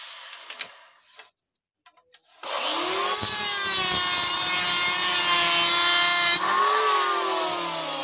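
A few light wooden knocks as the strips are set down. About two and a half seconds in, an electric hand planer's motor spins up and runs at full speed with a hissing cut into the wood. Near the end it drops off and winds down in falling pitch.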